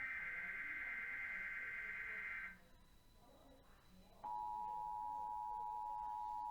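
Emergency Alert System test broadcast: the end of a SAME header data burst, a warbling two-pitch digital screech, then after a short gap the EAS two-tone attention signal starts about four seconds in and holds steady.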